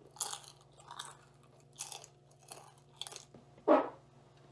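Mouth-close chewing of Cape Cod 40% less fat kettle-cooked potato chips, about five crisp crunches less than a second apart. Near the end comes one short, loud sound from the eater's voice.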